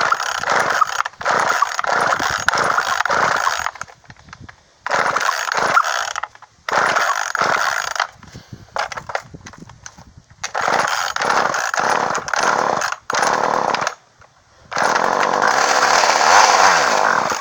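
Poulan Micro Pro chainsaw's two-stroke engine firing on gas poured into the carburetor, running in bursts of one to three seconds about five times and dying out between them. It runs only on the primed fuel, which the owner takes as a sign that the carburetor needs cleaning.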